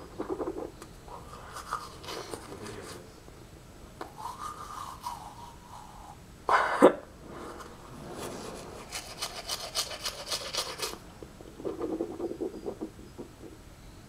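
Irregular rasping and rubbing noises close to the microphone, with a short loud scrape or knock about six and a half seconds in and a run of rapid scratchy ticks a little later.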